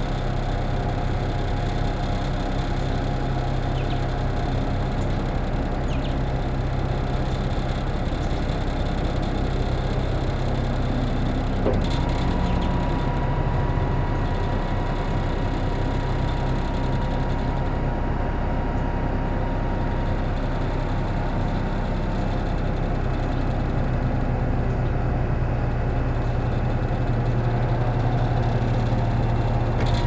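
Truck engine running steadily, driving the hydraulics of an Amco Veba knuckle-boom crane as the boom is worked by remote control. A thin high whine comes in about twelve seconds in and fades out some nine seconds later.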